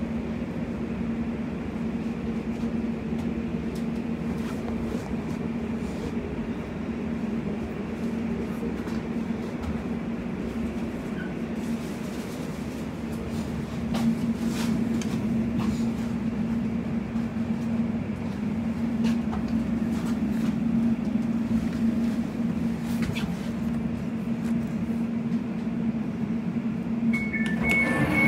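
Cabin sound of an Elizabeth line Class 345 electric train pulling into a station: a steady hum with a constant low drone and a few light clicks. Near the end, the repeating beeps of the door alert start up.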